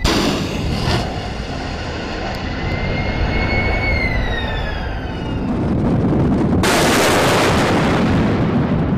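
Two shipboard missile launches: a sudden blast as the first missile's rocket motor fires, then a long rushing noise with a whistle that rises a little and then falls away as it flies off. A second launch blast comes about two-thirds of the way in and keeps rushing.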